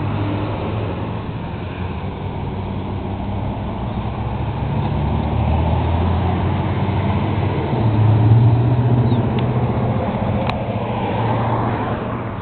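A motor vehicle's engine running with a low hum that shifts in pitch and swells louder about eight seconds in. There is a single sharp click about ten and a half seconds in.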